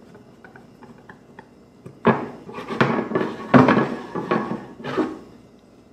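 Faint ticking of a screwdriver turning a screw in a corner clamp, then about five irregular clattering knocks from about two seconds in as the screwdriver and clamp are handled on a wooden workbench.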